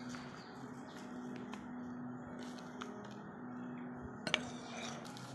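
Quiet room tone with a faint, steady low hum, and a single light click about four seconds in.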